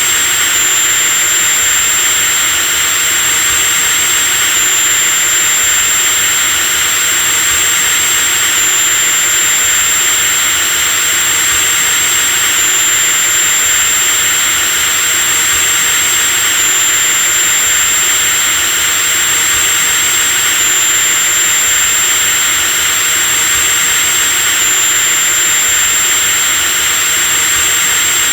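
Electric drill running continuously at steady speed: a loud motor hiss with a thin, high whine on top. The whine steps slightly about every four seconds.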